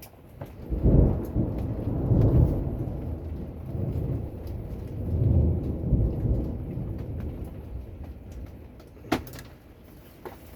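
Thunder rolling in deep rumbles that swell and fade over about eight seconds, with steady rain beneath. A single sharp tick comes near the end.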